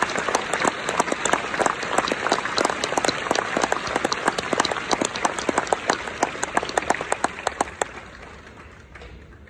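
Large audience applauding, a dense clatter of many hands clapping that thins out and dies away near the end.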